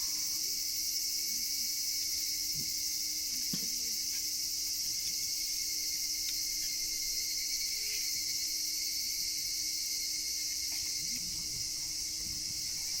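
Steady chorus of crickets and other insects, a continuous high-pitched trilling with a few faint ticks scattered through it.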